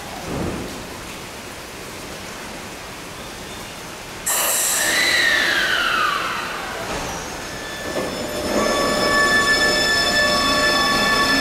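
Rain falling, then about four seconds in a Keio 1000-series electric train's Toyo IGBT-VVVF inverter cuts in suddenly with a tone that glides down in pitch for about two seconds. From about eight seconds the train runs with a set of steady high inverter tones over rail rumble.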